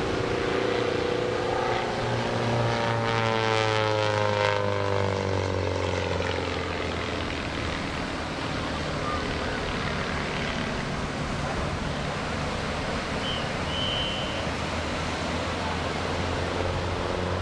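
Pitts aerobatic biplane's engine and propeller droning overhead, the pitch falling over the first several seconds as the plane passes and turns away, then a steadier drone.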